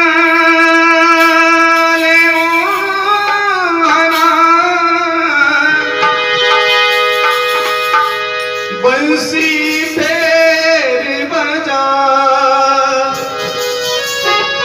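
Instrumental introduction to a Hindi devotional bhajan: a held, sustained melody line over naal hand-drum accompaniment.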